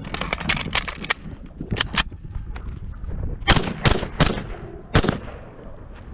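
Norinco SKS 7.62x39 rifle fired semi-automatically: four loud shots, three in quick succession about three and a half seconds in and a fourth about a second later. Lighter sharp clicks and knocks come in the first two seconds.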